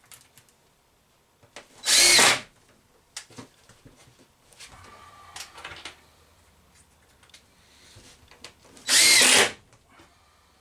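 Power drill driving screws in two short bursts of about half a second each, several seconds apart, the motor pitch rising and falling with each run. Fainter clicks and handling sounds come between the bursts.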